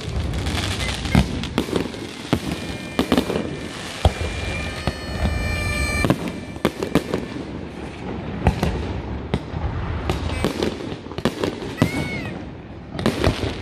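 Fireworks display: aerial shells going off in a quick, irregular series of bangs and crackles, with a steady high whistle lasting about a second and a half midway through.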